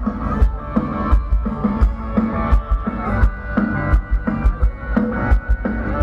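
Amplified live rock band playing, with a steady drum-kit beat under guitar and bass.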